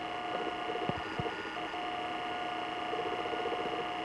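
Steady high-pitched electronic whine of several fixed tones over a low hiss, with a couple of faint ticks.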